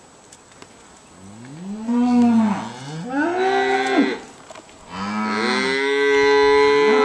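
Black Angus cattle mooing: calls that rise and then fall in pitch start about a second in, followed by a longer call from about five seconds in.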